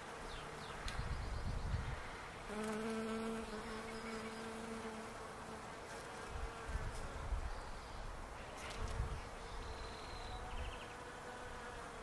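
Bees buzzing as they forage on the blossoms of a flowering palo verde tree: a steady hum of many bees, with one flying close about two and a half seconds in, its buzz louder and lower for a couple of seconds.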